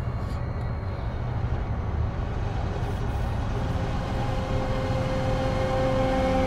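A low, rumbling drone of a suspense film score, with held higher notes swelling in the second half.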